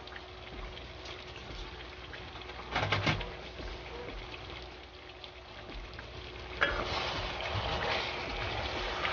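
Sweet chili sauce bubbling and sizzling in a pan around fried chicken wings, with a brief louder clatter about three seconds in. About two-thirds of the way through, a spatula starts stirring the wings through the sauce and the sizzling and scraping grow louder.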